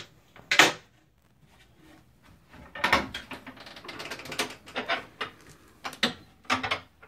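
Storage compartment doors on a firetruck bed being opened and shut by hand. A sharp knock comes about half a second in, then a pause, then a run of clattering knocks, and two more sharp knocks near the end.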